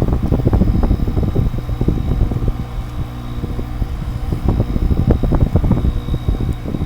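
Window air conditioner running with a steady hum and a thin high whine, under heavy wind buffeting on the microphone.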